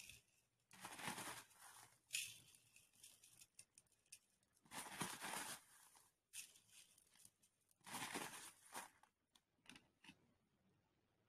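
Crushed glass pieces crunching and rustling as a glue-coated glass bottle is pressed and rolled over them on a cloth, in four short noisy bursts with small clicks between.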